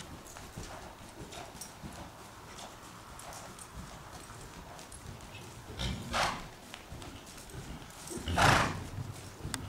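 Hoofbeats of a horse trotting on soft arena footing. Two loud rushing bursts of noise come about 6 and 8.5 seconds in, the second louder.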